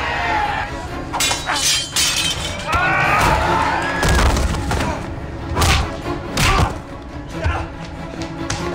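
Score music under a fight, with several heavy thuds and crashes as bodies hit the floor, and strained shouts or grunts near the start and about three seconds in.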